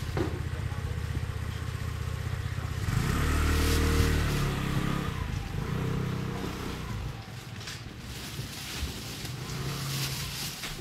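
A motor vehicle's engine runs close by. It grows louder about three to five seconds in, then fades away after about seven seconds.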